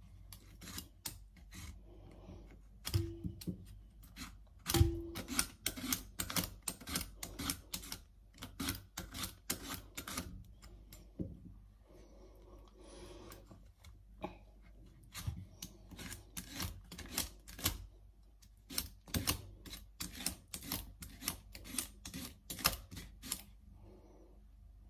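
Cassava root being shaved on a handheld vegetable slicer: a quick run of crisp scraping strokes, about three a second, that breaks off briefly around 12 s and stops near the end.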